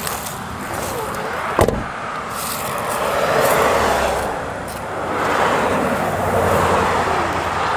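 Cars passing on the road, heard as two rising and fading swells of tyre and engine noise. A single sharp knock about a second and a half in.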